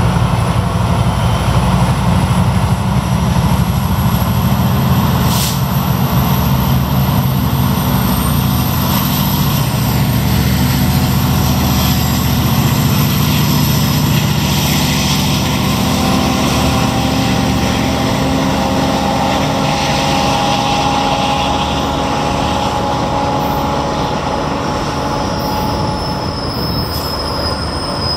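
GO Transit MP40PH-3C diesel locomotive and its bilevel train pulling away from a station. The engine's low rumble, working under load, slowly thins out as the train recedes. Thin, high squealing tones come from the wheels on the rails, and one sharp click sounds about five seconds in.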